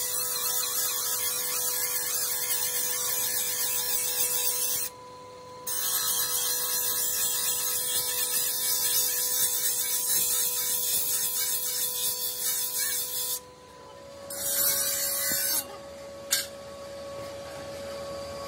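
Large motor-driven abrasive wheel grinding the edge of a steel chaff cutter blade: a steady grinding hiss over the machine's constant hum. It breaks off briefly about five seconds in and drops again after about thirteen seconds.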